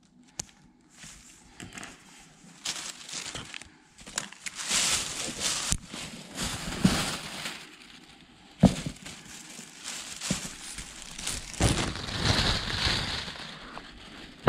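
Thin plastic shopping bag crinkling and rustling in spells as new rubber boots are pulled out of it, with a few sharp clicks and knocks, the loudest a little past halfway.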